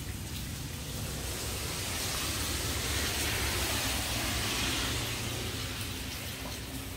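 Steady hiss of running or falling water, swelling a little in the middle.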